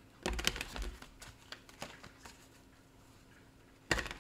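A deck of tarot cards shuffled by hand, a rapid rattle of cards slapping together. It comes in two bursts, about a quarter second in and again near the end, with a few single clicks between.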